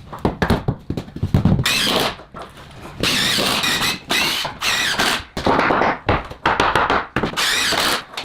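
Hand-tool carpentry work on wooden battens: a quick run of knocks, then a series of longer scraping strokes, each about a second long.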